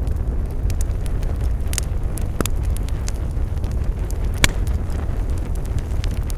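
Campfire burning: a steady low rumble of the flames with scattered sharp crackles and pops from the wood, two louder pops about two and a half and four and a half seconds in.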